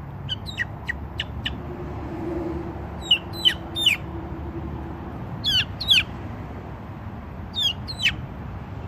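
Young chickens peeping: short, high calls that slide steeply down in pitch, coming in small clusters of two to four, several times.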